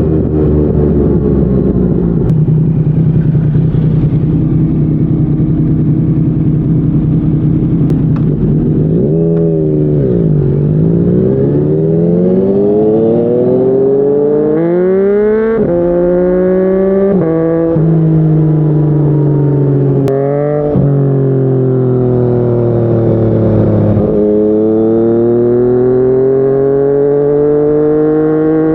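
Yamaha MT-09 three-cylinder engine through a Yoshimura R55 slip-on exhaust, first running at a steady pitch. About nine seconds in the revs drop and climb again, then rise in steps through several quick upshifts as the bike accelerates hard. The revs then sink slowly before climbing again near the end.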